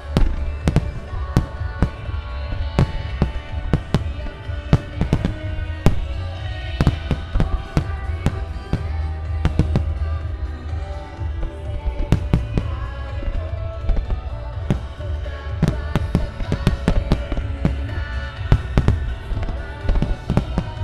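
Fireworks shells bursting in rapid succession, many sharp bangs over a deep rumble, with music playing underneath.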